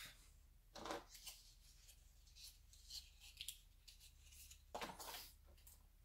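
Faint rustling and small clicks of fingers handling the cardboard and plastic packaging of a phone box. There are two brief rustles, about a second in and near five seconds, with light ticks between them.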